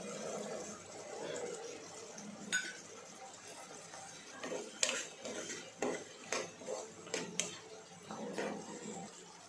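Steel ladle stirring and scraping vegetables and peas in a nonstick pot, clinking against the pot several times about halfway through. There is one earlier clink of metal on metal about two and a half seconds in, as the peas are tipped in from a steel bowl.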